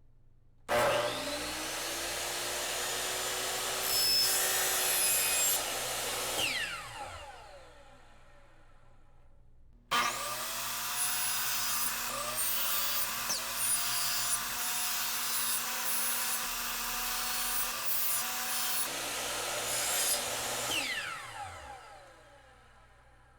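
Miter saw cutting walnut boards to length, twice: each time the motor spins up with a rising whine, runs through the cut, and winds down with a falling whine after the trigger is released. The second run is the longer.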